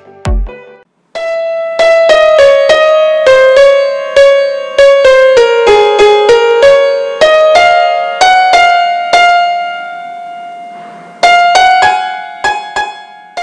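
Outro music: a keyboard melody of single struck, piano-like notes, beginning about a second in, with a brief lull near the end before the notes resume.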